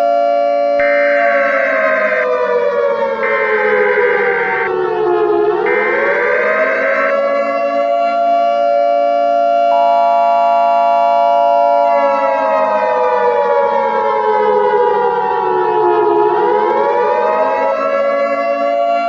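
Several warning sirens sounding together, civil-defence style. Steady tones run under a siren that slowly falls in pitch and winds back up twice, and in the first seven seconds a higher tone switches on and off three times.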